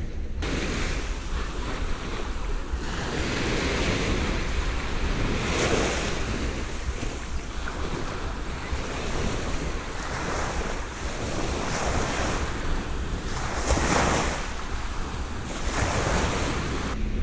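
Small waves breaking and washing up over a sandy shore, the wash swelling and fading every few seconds, with a low rumble of wind on the microphone.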